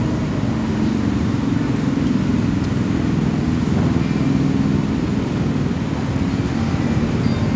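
Steady low rumble of road traffic, with engine noise running on without a break.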